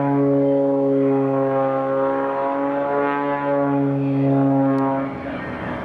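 A propeller airplane's engine droning at a steady pitch, ending about five seconds in and giving way to a rougher, noisier rush.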